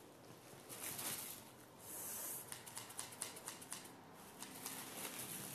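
Scissors snipping and cutting through the taped plastic wrapping of a parcel, with crinkling and rustling. A brief hiss comes about two seconds in, followed by a run of small clicks.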